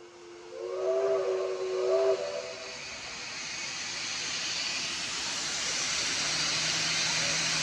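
R-class Hudson steam locomotive whistle sounding a chord of several notes, swelling twice before it stops about two and a half seconds in. Steam hiss then builds and grows steadily louder as steam blows from around the cylinders.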